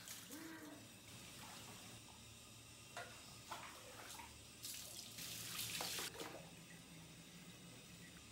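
Water scooped with a plastic jug and poured over a baby sitting in a plastic bucket: a few small splashes, then a louder pouring rush about five to six seconds in.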